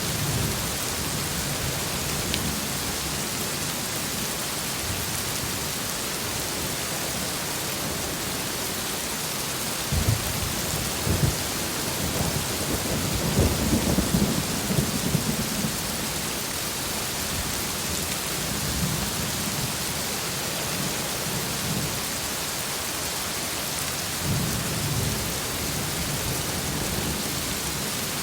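Heavy steady rain with thunder: a crack about ten seconds in and a long rolling rumble that swells from about twelve to sixteen seconds, with fainter rumbles later.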